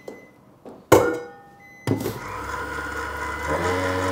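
Electric stand mixer whipping egg whites. A sharp clunk as the steel bowl is set in place, then the motor starts just before two seconds in and runs steadily, its note stepping up about three and a half seconds in as the speed is raised.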